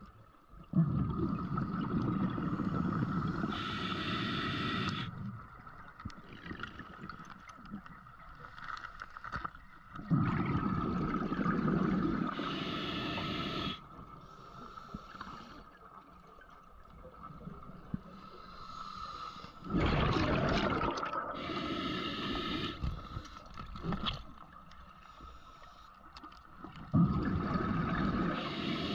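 Scuba diver breathing underwater through a regulator: long bursts of bubbling exhalation about every eight seconds, four in all, with quieter gaps between. A steady faint high tone runs underneath.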